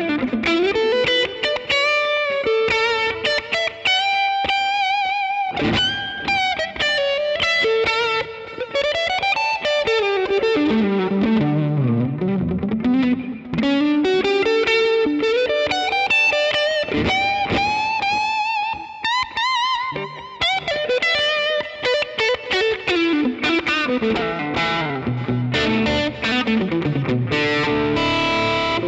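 Electric guitar played through a NUX MG-30 multi-effects processor: a lead improvisation of fast runs sweeping down and back up, with long held notes shaken by wide vibrato.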